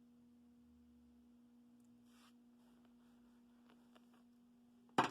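A faint, steady hum at one low pitch, with one sharp click near the end.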